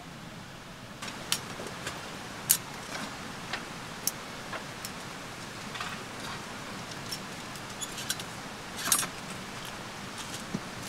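Scattered light metallic clinks and clicks from a folding remote-canister camp stove as its metal legs and pot supports are handled and unfolded. The sharpest clink comes about two and a half seconds in and a small cluster about nine seconds in, over a steady background hiss.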